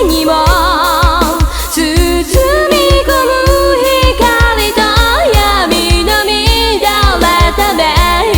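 Pop song with a singer holding wavering notes with vibrato over a fast, steady kick-drum beat.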